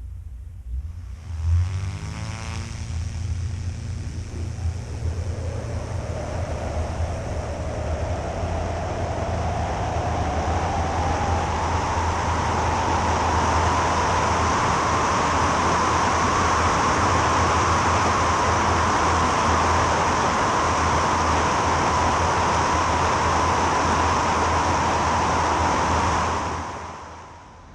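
Jodel D11 light aircraft's piston engine and propeller running up to high power, the pitch rising steadily for about ten seconds and then holding, typical of a fixed-pitch propeller gaining revs as the plane accelerates on takeoff. The sound drops away just before the end.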